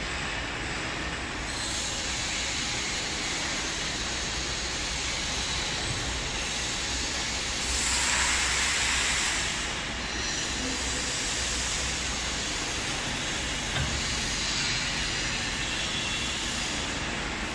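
Reel stretch wrapping machine running, a steady mechanical hiss and rumble, with a louder hiss for about two seconds midway and a single knock later on.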